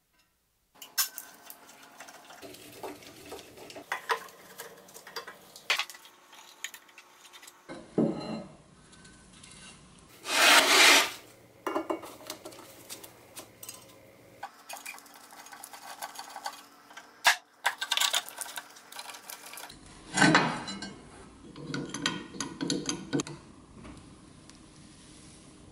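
Hand tools and small metal parts of an old Craftsman bench grinder clinking, scraping and rubbing as it is taken apart: rusty screws turned out, a hex key in a guard screw, and an adjustable wrench on the wheel's arbor nut. Irregular clicks, with a few short, louder bursts of scraping or rattling, the loudest about ten seconds in.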